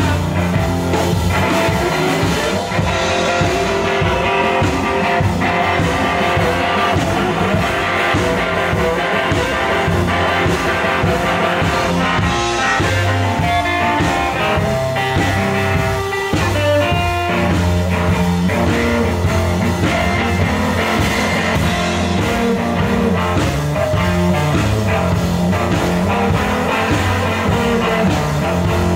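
Live blues band playing an upbeat instrumental break: a hollow-body electric guitar plays lead lines over a stepping bass line and a drum kit.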